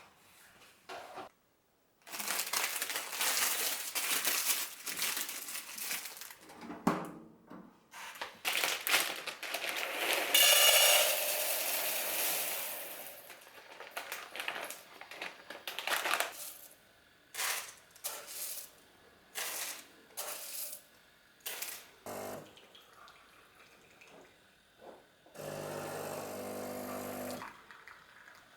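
A run of household handling noises: knocks, clatter and rustling, with a louder noisy stretch of a few seconds partway through. Near the end a small motor hums steadily for about two seconds, then stops.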